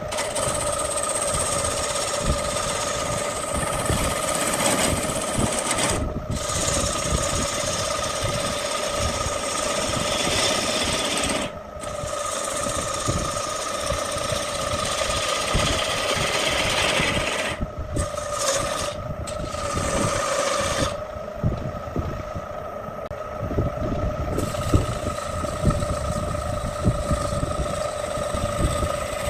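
Electric wood lathe running with a steady hum while a hand-held turning chisel cuts the face of a spinning wooden disc, making a rough, rattling hiss as shavings come off. The cutting noise breaks off several times when the tool is eased off the wood, leaving only the motor hum.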